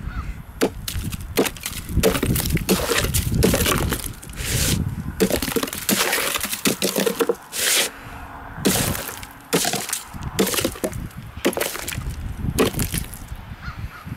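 Ratweiler knife with a thin reground edge chopping a block of ice on a wooden board: a dozen or more sharp chops at uneven intervals, some in quick runs, with the ice cracking and breaking into chips.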